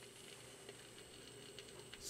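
Faint surface noise and light crackle from a 7-inch single's lead-in groove under the stylus of a 1976 Vanity Fair Fonz phonograph, with a few small ticks, just before the music begins.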